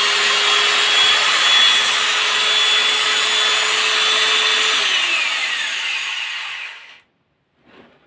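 Electric motor of an M1Z-ZK3-8 dowelling jointer running at steady speed with a high whine, then switched off about five seconds in and winding down to a stop by about seven seconds. A few faint knocks follow near the end.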